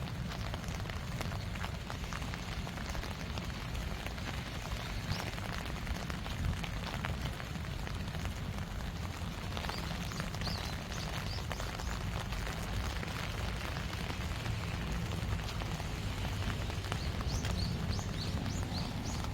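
Steady rain falling, with many individual drops pattering close by.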